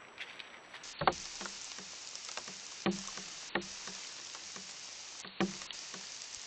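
Steady hiss from a trail camera's microphone, with four sharp knocks and a scatter of softer ticks and thuds close to the camera.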